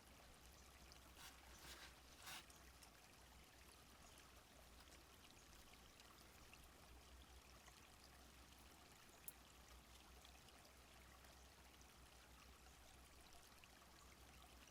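Faint, steady trickle of a small stream flowing. Two brief soft rustles come about two seconds in, and a small click past the middle.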